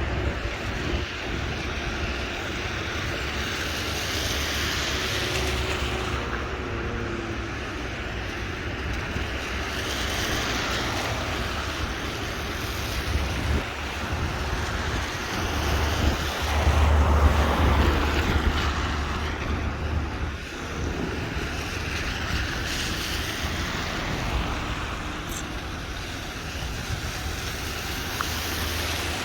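Steady rain noise on a walk, with wind buffeting the microphone; a louder low rumble swells for a few seconds in the middle.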